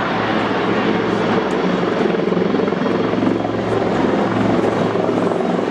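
Two Westland Lynx helicopters hovering, their rotors and turbines running steadily with a fast, even rotor beat.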